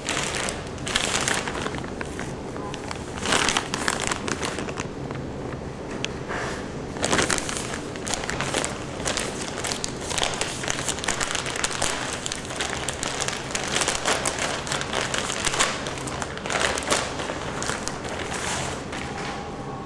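Plastic poly mailer bag crinkling and rustling in irregular bursts as it is handled and opened.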